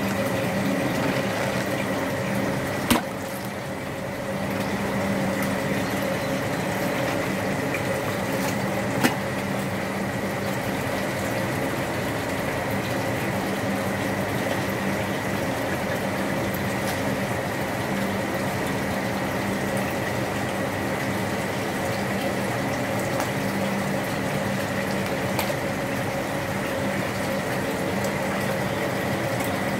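Steady hum of a water pump with water running and trickling, as from a fish tank's filtration. Two sharp clicks come about three and nine seconds in.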